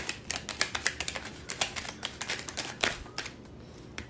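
A deck of oracle cards being shuffled by hand: a quick, irregular run of clicking card slaps that thins out near the end.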